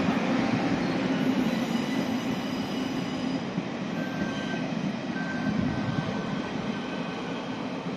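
Passenger coaches of a departing train rolling past: a steady rumble of wheels on rail with faint high wheel squeals, fading as the last coach goes by.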